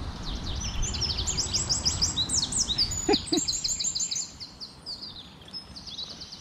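Small songbirds singing: rapid, repeated high chirps and trills overlapping one another. A low rumble underneath stops about four seconds in.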